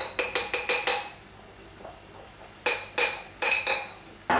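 A metal spoon clinking against a ceramic mug while gravy is spooned into it: a quick run of about five sharp, ringing clinks, a pause, another run of about five, then one more near the end.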